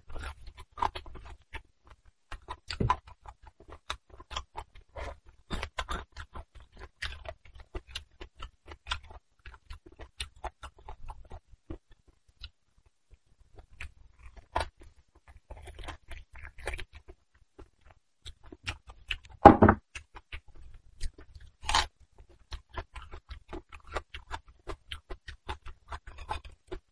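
Close-miked chewing and eating of braised beef bone marrow, with irregular wet mouth smacks and clicks.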